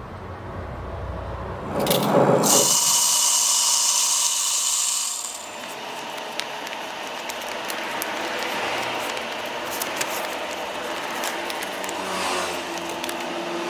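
A coffee-making machine runs with a loud whir and hiss for about three seconds, then stops, leaving quieter clatter and small clicks of cups and utensils.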